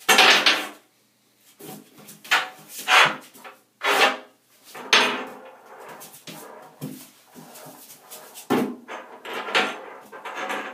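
A Doberman puppy pawing and mouthing at a metal bathtub drain plug: repeated short bursts of scraping and rattling against the tub, the loudest right at the start.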